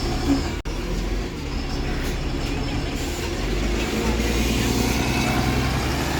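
Diesel bus engine running close by, a steady low rumble that grows stronger about two-thirds of the way through; the sound cuts out for an instant under a second in.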